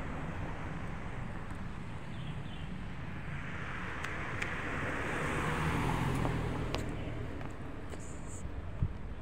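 Road traffic over a steady low rumble, with a vehicle passing that swells and fades about four to seven seconds in.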